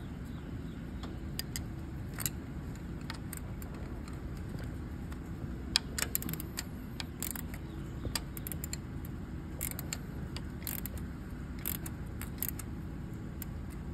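Scattered light metal clicks and clinks of a combination wrench and nuts on a double-nutted intake plenum stud being worked back into the cylinder head, over a steady low background hum.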